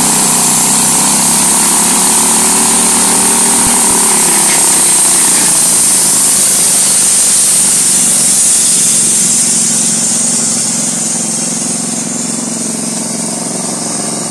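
Homemade band sawmill running under its engine, with a strong high hiss over the engine's note. The engine's pitch wavers, and the whole sound grows quieter over the last few seconds.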